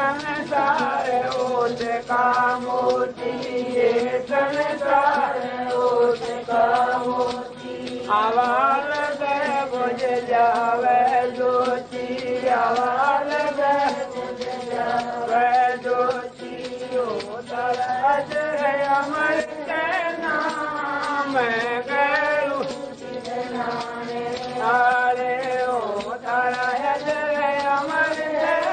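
A man singing a Hindi devotional bhajan in a chant-like style, with long held notes that waver and glide, over a steady drone.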